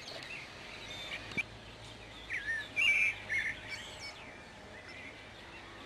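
Small birds chirping and calling, a string of short rising and falling chirps that is busiest and loudest about halfway through. A single sharp click about a second and a half in.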